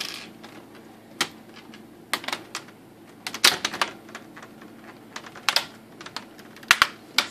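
Plastic screen bezel of an ASUS X501A laptop being pressed back onto the lid, its clips snapping in with a run of sharp, irregular clicks, in clusters of two or three.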